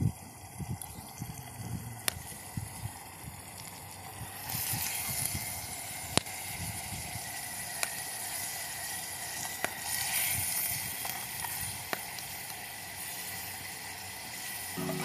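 Sliced onions frying in hot oil in a clay handi pot, a sizzling hiss that grows louder about four seconds in, with a few sharp clicks.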